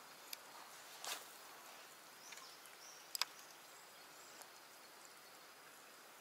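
Quiet outdoor ambience by still water: a faint steady hiss with a few short, high bird chirps. A handful of brief sharp clicks stand out, the loudest a quick pair about three seconds in.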